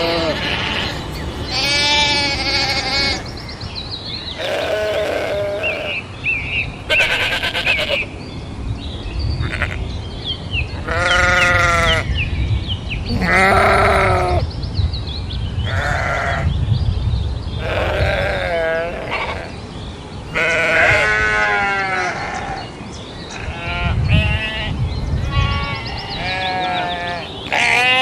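Sheep bleating again and again, about fifteen separate wavering calls at several different pitches, some high and some lower, following one another across the whole stretch.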